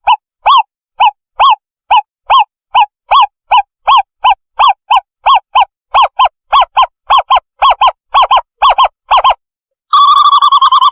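Recorded owl call played loudly as a bird-trapping lure: a long series of short, clear hooting notes, about two a second and quickening slightly, then after a brief pause a fast trill near the end.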